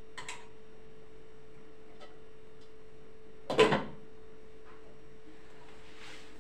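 A glass cooking-pot lid clanks down onto a metal pot, a loud short clatter of two or three quick hits about three and a half seconds in, after a couple of light utensil clicks. A steady low hum runs underneath.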